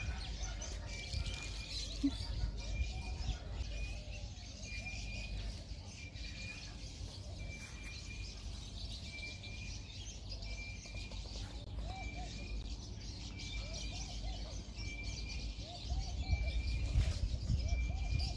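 Birds calling outdoors: one bird repeats a short high note very evenly, about once every 0.8 seconds, and lower arching calls join in the second half. Wind rumbles on the microphone and grows louder near the end.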